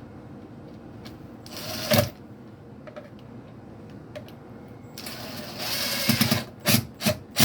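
A handheld power tool running in two short bursts, with a run of sharp knocks near the end, as the vent cap is fastened to the wall.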